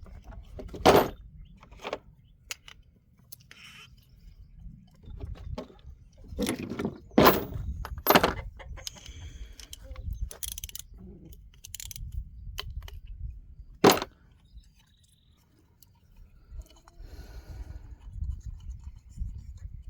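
Small metal parts and hand tools clicking, clinking and scraping as the float bowl is taken off a small engine's carburetor: scattered sharp knocks, the loudest about a second in, around seven and eight seconds, and near fourteen seconds.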